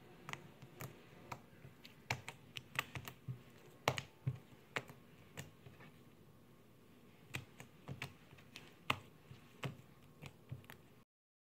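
Slime being kneaded and pressed by hand, giving irregular sharp clicks and pops from trapped air, a few a second, with a quieter stretch in the middle. The sound cuts off just before the end.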